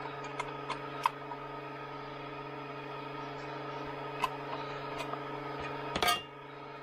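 A few sharp clicks and snaps as the case of a power steering ECU is worked apart by hand, then a louder clatter about six seconds in as the housing comes away from the circuit board. A steady electrical hum runs underneath.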